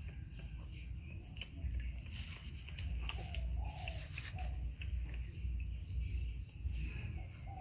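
Songbirds chirping: short, quick series of high chirps repeated every second or so, with a few falling high notes, over a steady low rumble.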